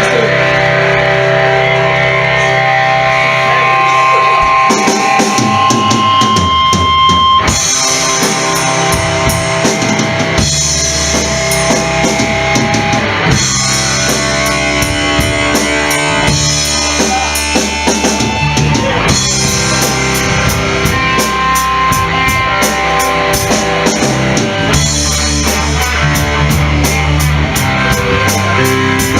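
Live rock band playing an instrumental passage: electric guitar, with the drum kit and bass coming in about five seconds in and keeping a steady beat.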